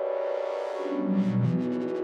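Roland GAIA 2 synthesizer sounding a held chord, with repeating swells in its upper range that come faster and faster toward the end. About a second in, a lower tone enters and slides down in pitch.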